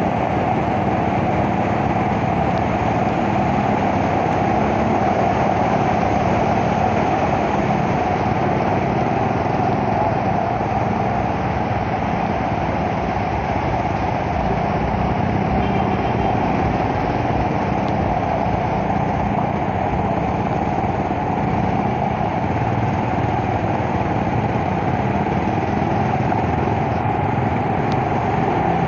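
Steady noise of a motorbike ride through floodwater: engine running, with tyres spraying through water on the road, all blending into one even wash.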